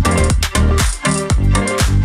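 Upbeat electronic dance-style background music with a steady beat.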